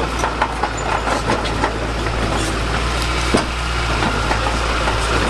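Heavy construction machine's diesel engine running steadily, with scattered clanks and knocks over it and one sharper knock about three and a half seconds in.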